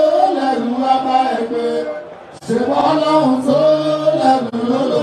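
Male singing in a chant-like style, long held notes sliding gently between pitches, with a short break a little over two seconds in.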